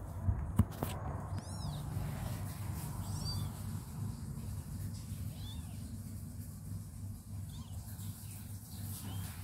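Newborn kittens giving short, high-pitched mews, about five spread out one at a time, over a steady low hum. Two sharp knocks about half a second in.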